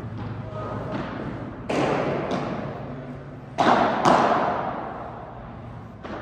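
Four sharp thuds echoing through a large indoor hall, the loudest two about half a second apart near the middle, over a low steady hum.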